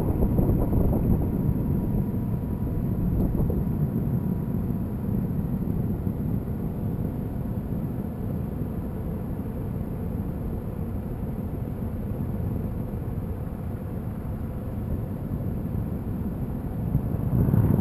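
Pickup truck's tyre rolling over snow packed on ice, a steady low rumble with wind buffeting the microphone, swelling again near the end.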